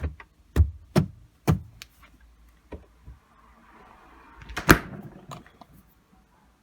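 A series of sharp knocks and clicks, about five in the first three seconds, then a rustling swell with the loudest knock nearly five seconds in and a few lighter clicks after it.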